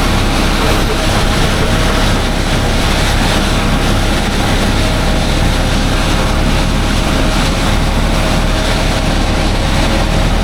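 Farm tractor and silage-chopping machinery running steadily: a continuous engine drone under a loud, even hiss.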